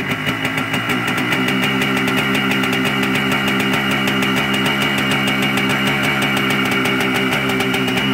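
Yamaha Blaster 200's single-cylinder two-stroke engine idling steadily, just started cold with the choke on.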